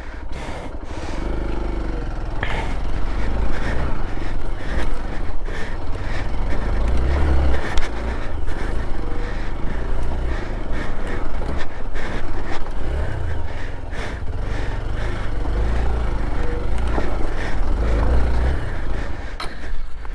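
Hero XPulse 200 4V motorcycle riding a rough off-road trail: the engine runs under heavy wind rumble on the microphone, with frequent knocks and scrapes from the rocky ground.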